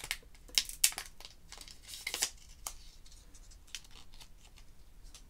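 Thin plastic protective wrap being peeled off a new Apple Pencil, crinkling and crackling in a few sharp crackles, most of them in the first three seconds, then only faint ticks.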